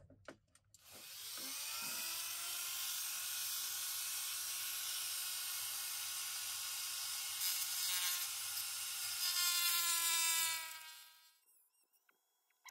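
Small pen-style rotary tool (Dremel-type) with a saw disc, spinning up with a rising whine, running steadily while cutting into a die-cast car's plastic chassis, louder in two short spells near the end, then winding down with a falling whine.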